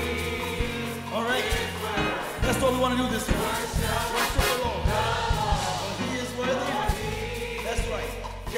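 Gospel choir singing with a live band, drums and bass keeping a steady beat underneath.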